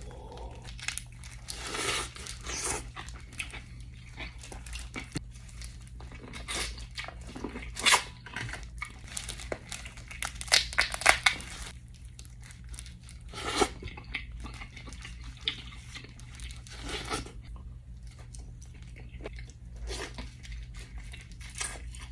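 Close-up eating of a seafood boil: irregular crunching and cracking of Dungeness crab shell and corn, with chewing and the crinkle of plastic gloves, the loudest crunches about 8 and 11 seconds in. A steady low hum runs underneath.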